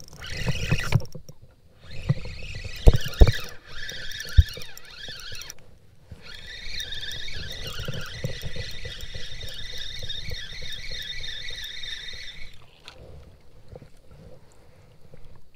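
Spinning reel being cranked: its gears give a whirring whine, in short stretches over the first five seconds, then steadily from about six and a half seconds until it stops near thirteen seconds. Two sharp knocks about three seconds in are the loudest sounds.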